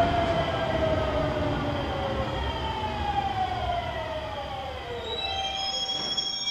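A JR Shikoku 7200-series electric train braking into the platform, its electric traction motors whining in a set of tones that slide steadily down in pitch as it slows. Thin high tones come in near the end as the train comes to a stop.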